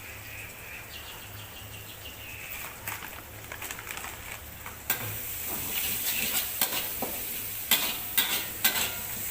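Food frying in a wok with a steady sizzle and a utensil stirring and clicking against the pan. The sizzle jumps much louder about five seconds in.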